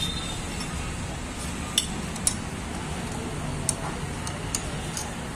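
Steel spanners clinking against the camshaft sprocket bolts and each other as they are fitted and worked: about six short, sharp metallic clinks over a steady background hum.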